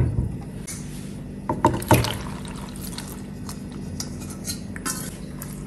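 Boiled penne tipped from a glass bowl into a pot of creamy sauce: two knocks just under two seconds in, then soft scattered sliding and plopping sounds of the pasta landing, over a faint steady hum.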